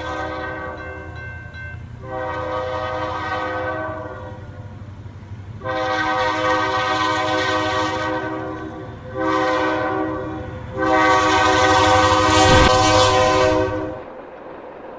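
Train horn sounding five blasts, the last the longest and loudest, over a low rumble that drops away near the end.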